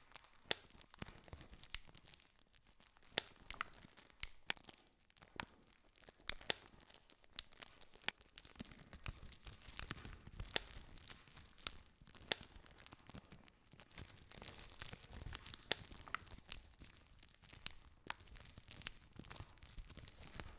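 Wood campfire crackling, with many irregular sharp pops and snaps over a soft hiss of burning.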